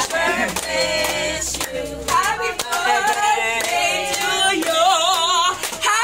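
A group of women and men singing a song together, with some handclapping.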